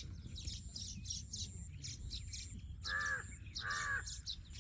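Two harsh crow caws, about three and four seconds in, over a constant rapid high chirping of small birds and a thin steady high tone.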